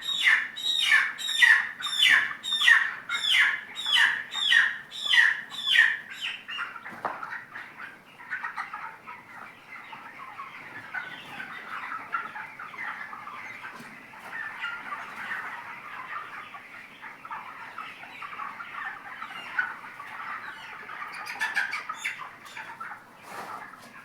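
A flock of 25-day-old broiler chickens chirping together in the poultry house. Over the first six seconds one bird gives loud, repeated falling calls, about two and a half a second. After that the flock's steady chorus of chirps carries on.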